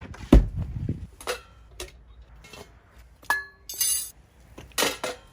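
Hard objects clinking and knocking: a heavy thump near the start, then scattered sharp clinks, one of which rings briefly about three seconds in.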